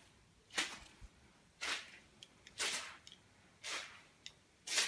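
Footsteps squelching on a waterlogged, muddy floor, five steps about one a second.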